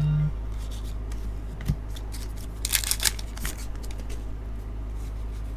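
Glossy trading cards being handled by hand: cards slid off a stack and flipped, with light clicks and papery swishes, the loudest swish about three seconds in. A brief low buzz at the very start, over a steady low hum.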